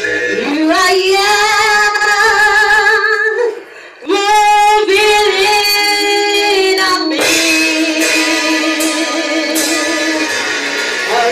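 A woman singing a gospel song into a microphone, holding long notes with vibrato, over instrumental backing. There is a short break about three and a half seconds in.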